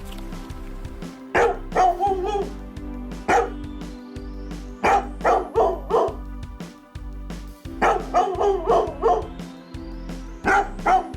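A dog barking in short bursts of several barks each, over background music with a steady beat.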